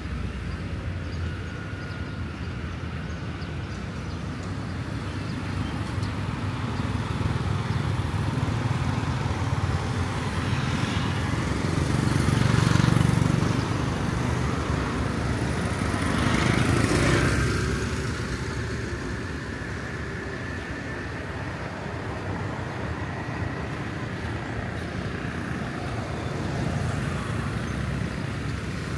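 City street traffic: vehicles running by at a steady low level, with two passing close and louder about twelve and seventeen seconds in.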